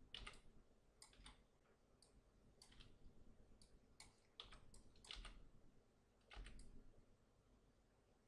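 Faint, irregular clicks of a computer mouse and keyboard, roughly one a second, some in quick pairs.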